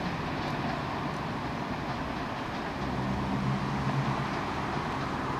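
Class 37 diesel locomotive's English Electric V12 engine droning steadily as it hauls a train of coaches away, with the coach wheels clicking faintly over the pointwork.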